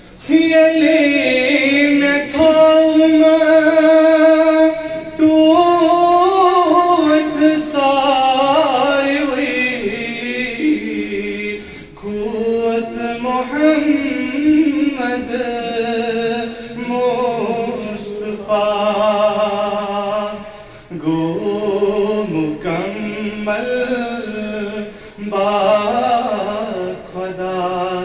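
A man's solo voice chanting unaccompanied into a microphone, in long held, wavering notes that slide between pitches, with short breaks for breath.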